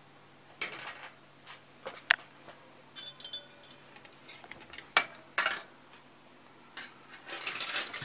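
Handling noise: rustling with a few sharp clinks and knocks, the sharpest about two seconds in and about five seconds in.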